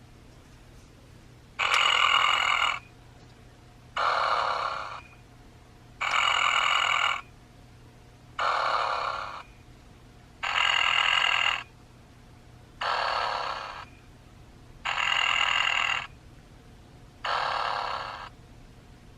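Applause animated Snoring Snoopy plush snoring through its small built-in speaker. Eight snore sounds of about a second each come at an even pace, alternating an even one with one that fades out, about four breaths in all.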